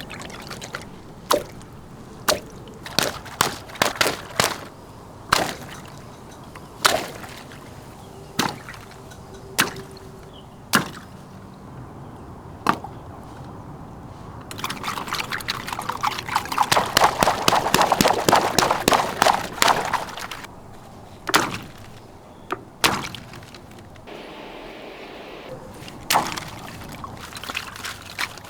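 Water pouring and trickling, with sharp drips and splashes at irregular intervals and a denser, louder run of splashing in the middle.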